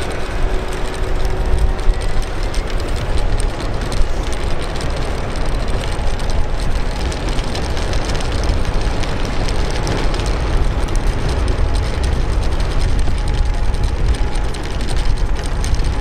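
Strong wind buffeting the microphone: a loud, gusty low rumble with a hiss over it.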